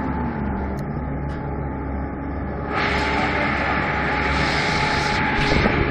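Twin Honda 90 hp four-stroke, four-cylinder outboard motors running under way with a steady drone. About three seconds in, a louder rushing noise of churning prop wash comes in and holds.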